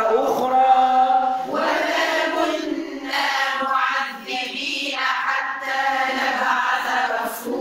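A group of voices chanting Quran verses together in unison, in a melodic recitation style, repeating a passage during memorization practice.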